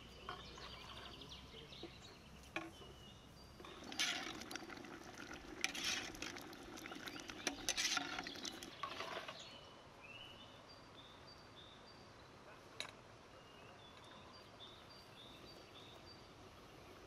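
A metal ladle stirring thick simmering pomegranate jam in a large metal pot, scraping and clinking against the pot for several seconds in the middle; after that it goes quiet.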